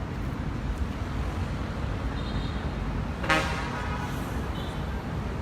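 Steady low rumble of road traffic, with one short vehicle horn honk a little past three seconds in.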